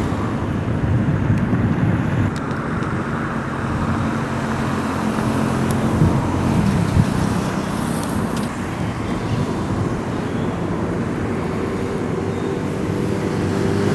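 Road traffic noise: cars and other vehicles passing steadily, with one vehicle's engine hum standing out about halfway through.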